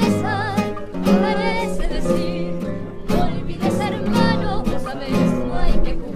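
Acoustic guitar trio playing a tango, a melody with vibrato over plucked and strummed accompaniment.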